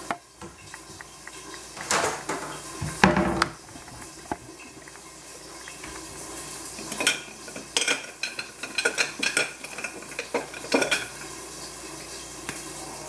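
Kitchen items knocking and clattering as they are set down and handled on a tiled countertop, among them a plastic cutting board. A few louder knocks come in the first few seconds, then a run of small clicks and clinks.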